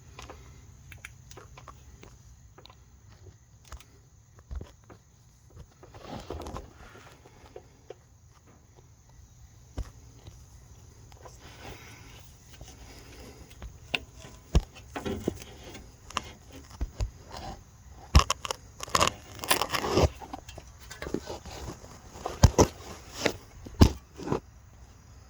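Handling and movement noise from someone shifting around under a truck: scattered clicks, scrapes and rustles, sparse at first, then busier and louder over the second half.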